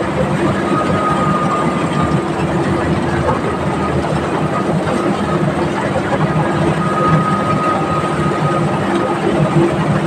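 Engine of a rice threshing machine running steadily under load, with a high whine that comes in about a second in and again near the end.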